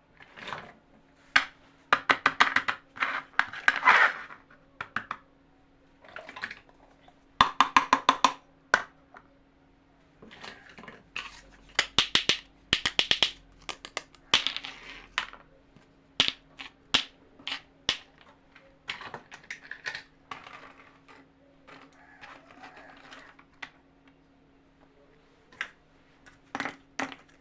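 Small plastic toy kitchen pieces and their packaging being handled: irregular clicks and taps with short bursts of rustling, over a faint steady hum.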